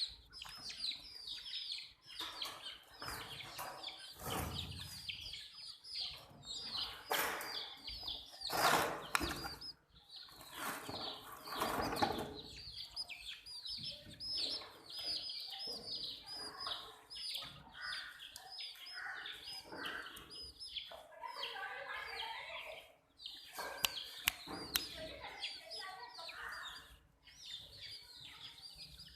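A flock of baby chicks peeping continuously, many short high chirps that each slide downward in pitch, overlapping one another. Several louder bursts of scuffling noise stand out among them, a few seconds in and again about twelve seconds in.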